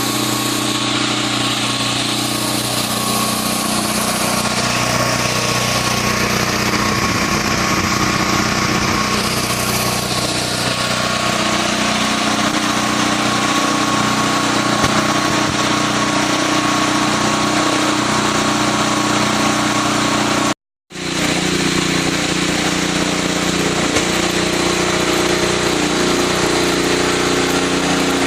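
Engine of a CO2 welding generator running at a steady speed, with a constant hiss above it. The sound cuts out completely for a split second about two-thirds of the way through, then resumes unchanged.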